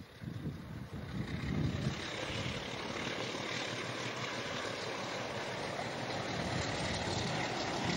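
RENFE class 321 diesel locomotive's engine working as it approaches hauling a freight train, growing louder over the first two seconds and then running steadily.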